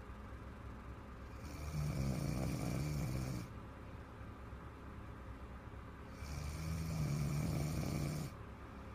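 A woman snoring heavily in her sleep: two long snores of about two seconds each, roughly five seconds apart, each a low rattle with breathy hiss, with quieter breathing between them.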